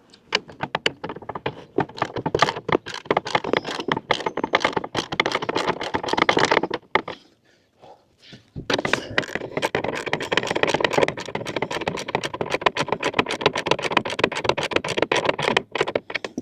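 Ratchet wrench clicking rapidly as bolts are tightened down. There are two long runs of fast, even clicks with a short pause between them, about seven seconds in.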